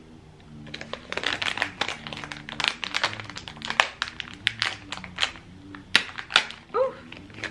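A sealed blind-bag pin packet crinkling and crackling in irregular bursts as it is twisted and pulled by hand, a hard-to-open pack resisting being torn.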